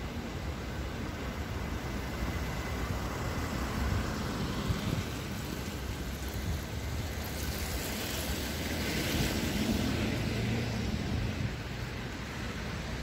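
Steady city street traffic noise, with a vehicle's tyres hissing past on the wet road, loudest about eight to ten seconds in.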